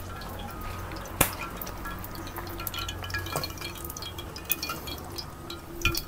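Firewood burning in a clay cooking stove, crackling with many small irregular snaps and one sharp loud pop about a second in.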